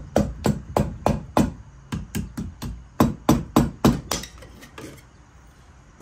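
Butt end of a hammer handle tapping a 70mm flat-top piston down through a piston ring compressor into the cylinder of a Tillotson 212 engine block, about three sharp taps a second. The taps grow weaker after about four seconds and stop near the fifth as the piston goes into the bore.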